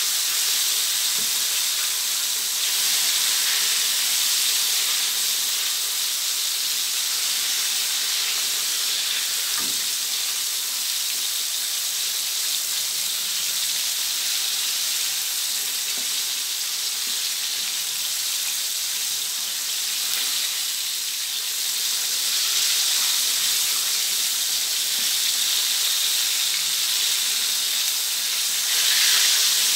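Marinated chicken wings deep-frying in a wok of hot oil: a steady sizzling hiss.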